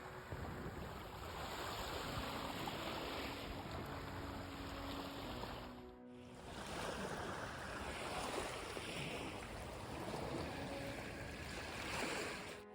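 Small Mediterranean waves washing onto the beach, a steady surf hiss that swells and eases, with a brief dip about halfway through.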